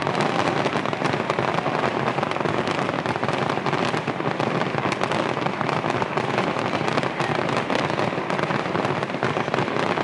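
Fireworks display crackling and popping densely and continuously, many small bursts running together into a steady crackle with no single big boom standing out.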